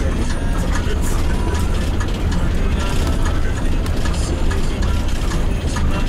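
Vehicle driving over a rough, unpaved gravel road, heard from inside the cabin: a steady low rumble of engine and tyres under a constant clatter of cabin rattles.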